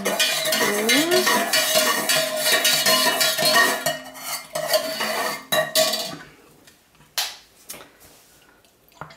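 A utensil stirring quickly in a container, clinking and scraping against its sides, with a light ringing, for about six seconds, then a few light knocks. This is the mixing of sodium lactate and sugar syrup into a soap-making lye solution.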